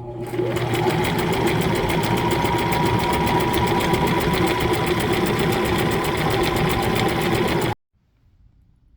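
Brother XM2701 sewing machine stitching a sample row of a built-in stitch on scrap fabric: the motor picks up speed, runs steadily with rapid needle strokes, then stops abruptly near the end.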